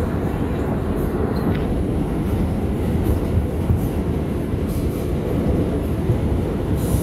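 New York City Subway Bombardier R142 train running along the track: a steady, dense low rumble of wheels and car body, with a few faint, brief high clicks.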